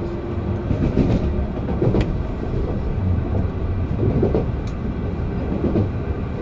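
An MI09 RER A train running between stations, with a steady low rumble of wheels on the rails and a few sharp clicks from the track.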